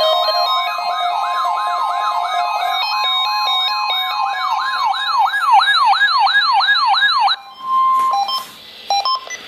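An electronic siren wailing up and down several times a second, over a steady weather-radio warning alarm tone and stepping electronic beeps higher up. All of it cuts off suddenly about seven seconds in, followed by a short beep and a couple of brief noisy bursts.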